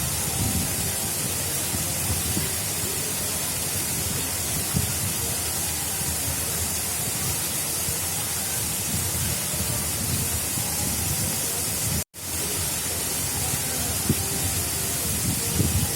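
Water rushing steadily along an artificial river channel, a dense even hiss with uneven low rumbling underneath. The sound cuts out for an instant about twelve seconds in, then comes straight back.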